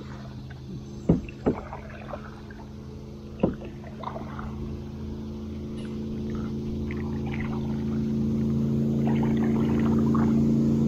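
Electric trolling motor on a canoe humming steadily, getting louder as it comes up to speed. Three sharp knocks sound in the first few seconds.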